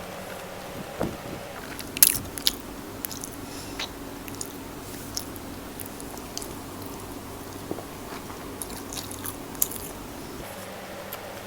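Close-up mouth sounds of a person chewing squid sisig with rice, wet chewing broken by sharp crunchy clicks now and then, the loudest about two seconds in.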